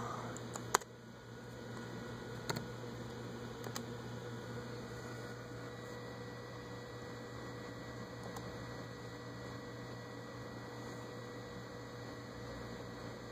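Steady low electrical hum, with one sharp click, likely a mouse click sending the tweet, under a second in and two fainter clicks a few seconds later.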